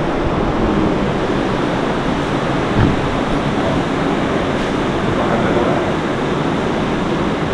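Steady rushing noise of an air-conditioning system filling an indoor hall, with one soft knock about three seconds in.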